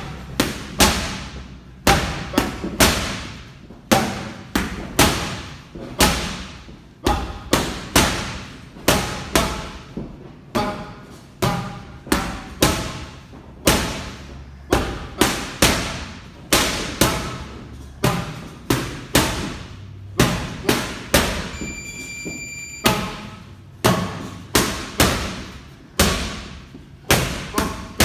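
Boxing gloves smacking into focus mitts during pad work: sharp slaps in quick combinations of two to four punches, with short pauses between runs.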